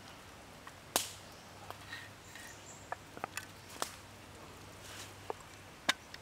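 Scattered sharp crackles and pops from a wood fire under a pan, with one loud crack about a second in.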